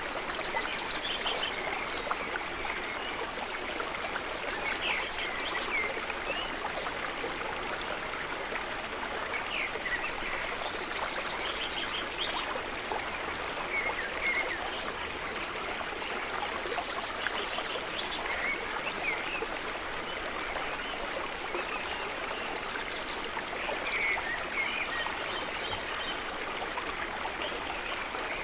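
Stream water running and splashing steadily, with short chirping animal calls popping up over it every few seconds.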